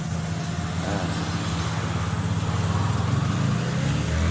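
Engine running steadily with a low hum that swells a little in the second half.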